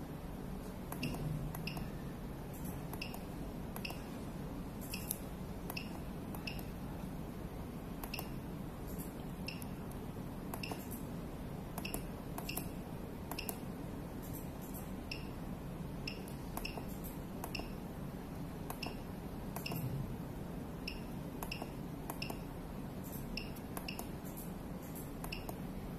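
Veterinary ECG machine (VECG-C06G, 6-channel) beeping: short, high electronic beeps repeating roughly once a second or a little faster, with a few gaps, and scattered sharp clicks over a steady low hum.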